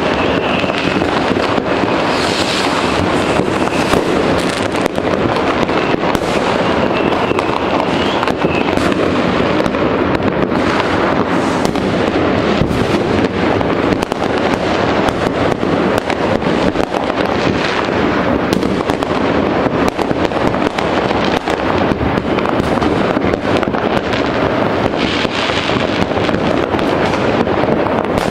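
New Year's Eve fireworks going off all over a city at once: a dense, unbroken barrage of firecracker cracks and rocket bangs. A thin high whistle runs through the first eight seconds or so.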